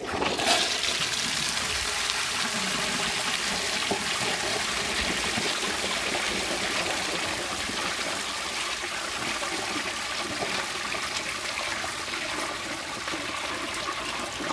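1991 Briggs Conserver toilet, fed from a mid-level tank, flushing: water starts rushing at once and keeps up a steady, loud rush through the bowl in one long flush.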